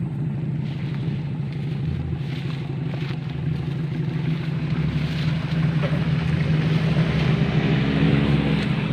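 Off-road 4x4's engine running at low revs in a slow crawl over a muddy track, a steady low drone that grows slightly louder in the second half.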